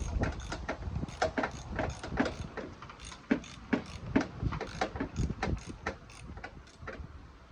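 Hand ratchet wrench clicking in a quick, irregular run of clicks as a bolt on the new upper engine mount is turned in; the clicks grow fainter near the end.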